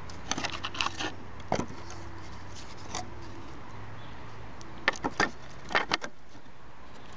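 Split oak firewood logs knocking together as they are handled, in several short clusters of sharp knocks, the loudest about five and six seconds in.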